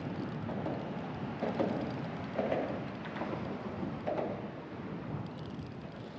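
Wind buffeting the microphone: a steady low rumble and rush with a few stronger gusts.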